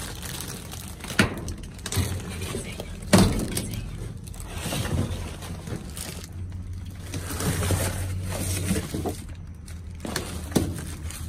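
Trash being rummaged through in a dumpster: plastic bags and cardboard rustling, with a few sharp knocks in the first few seconds and another near the end.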